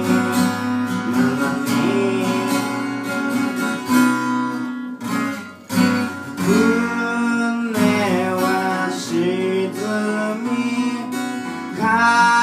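Strummed acoustic guitar accompanying a singing voice in a live song performance.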